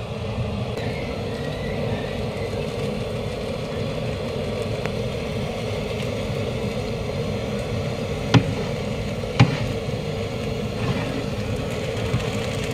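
Steady rushing background noise, with two sharp knocks about a second apart past the middle.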